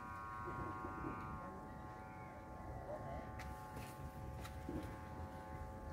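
A faint, steady buzzing hum made of several held tones at fixed pitch. The higher tones fade out about a second and a half in, and a few faint ticks come later.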